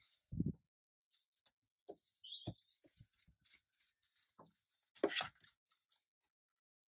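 Five-week-old lurcher puppies giving a few faint high squeaks among the bumps and rustles of being handled, with a low thump near the start and a sharper knock about five seconds in.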